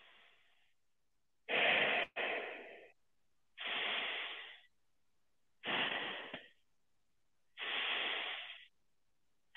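A man breathing slowly and deeply into the microphone, demonstrating abdominal (belly) breathing. Audible breaths begin about one and a half seconds in and come roughly every two seconds, each lasting under a second. The sound is thinned by a narrow-band web-conference audio stream.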